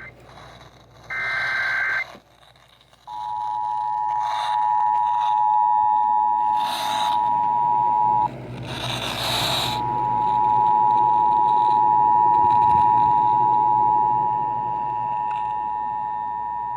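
Emergency Alert System tone sequence on NOAA Weather Radio, heard through a radio receiver. About a second in there is a one-second burst of SAME header data, a two-pitched digital warble. From about three seconds in comes the steady two-tone attention signal, which drops out for a second or so in a loud burst of static around eight to nine seconds, then resumes. Short crackles of reception static sound throughout.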